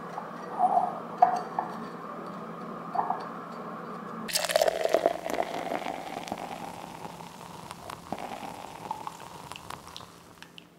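Hot water poured from a gooseneck kettle into a paper drip-coffee filter bag hung on a mug, a steady trickle starting about four seconds in. Before it come a few light clicks and rustles as the paper drip bag is fitted onto the mug.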